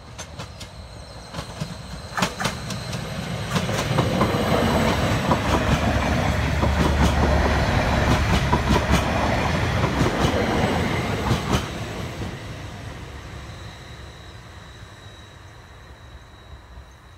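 A Stadler FLIRT passenger train passing: its rumble builds over the first few seconds, is loudest for about eight seconds, then fades as it moves off. Sharp clicks sound as the wheels cross rail joints, a cluster as it arrives and another near its tail.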